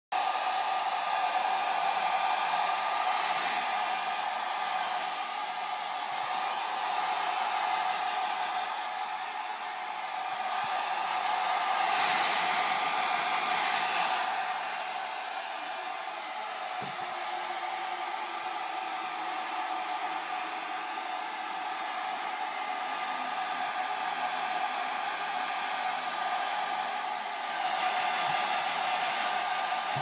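Blow dryer running steadily: a motor whine over rushing air, swelling louder now and then.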